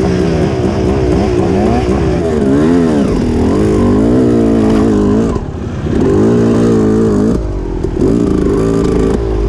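Dirt bike engine heard close up, revving up and down as the rider works the throttle. It eases off briefly about five and a half seconds in and again near eight seconds.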